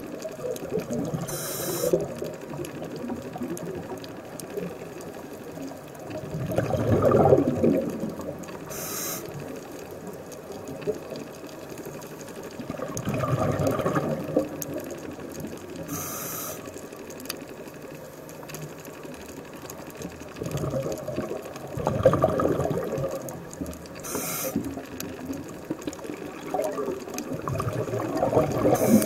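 Scuba diver breathing through a regulator underwater. A short hiss of the inhale comes about every seven to eight seconds, and each is followed a few seconds later by about two seconds of gurgling exhaled bubbles.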